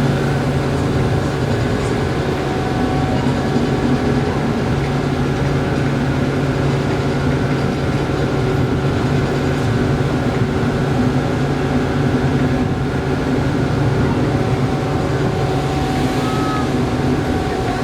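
Large car ferry's engines and machinery running, a steady drone with a constant low hum and a few steady higher tones.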